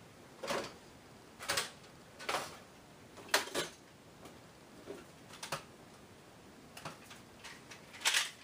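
Plastic toy foam-dart blasters being handled on a wall rack: a handful of separate short plastic clacks and scrapes, spread out, with quiet between them.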